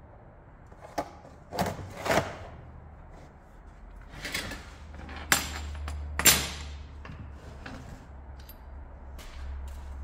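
A series of about six sharp knocks and thuds of hard objects striking or being set down, the loudest about two seconds and about six seconds in, over a low steady hum that comes in about halfway through.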